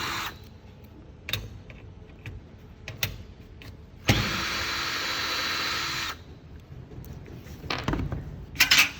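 Power drill-driver spinning out screws from the barrier frame: one run stops just after the start, another runs for about two seconds from about four seconds in, with small clicks and knocks of parts being handled between and near the end.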